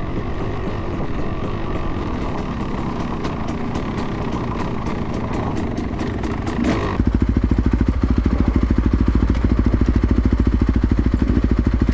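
Dirt bike engine running while riding, with wind noise on the microphone. About seven seconds in, the sound changes abruptly to a loud, even, low pulsing of the single-cylinder engine at low revs.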